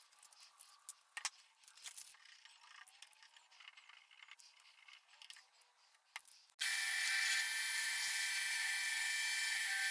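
Faint crinkling and clicking of masking tape being pressed around a knife handle. About two-thirds of the way through, a drill press cuts in suddenly with a steady whir as its bit bores a pin hole through a taped micarta handle scale.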